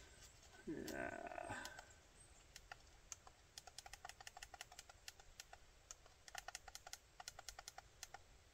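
Faint, irregular clicking of a DSOON trail camera's buttons being pressed to enter a PIN code, in short runs of quick presses. A brief, louder falling sound comes about a second in.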